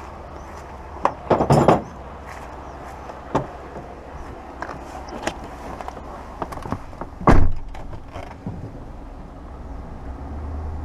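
Pickup truck's driver door shutting with one heavy thump about seven seconds in, after scattered knocks and clicks as someone climbs into the cab. A steady low hum runs underneath.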